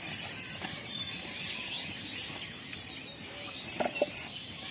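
Birds chirping faintly in the background, with two brief sounds about four seconds in.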